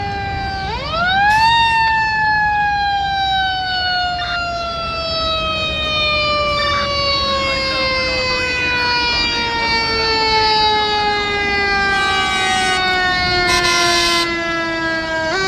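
Fire engine siren wailing: it winds up quickly about a second in, then falls slowly and steadily in pitch for many seconds before winding up again near the end.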